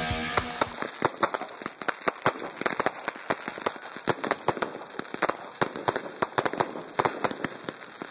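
Aerial fireworks crackling: rapid, irregular sharp pops, many a second, from crackling stars bursting overhead. A guitar music track fades out in the first second.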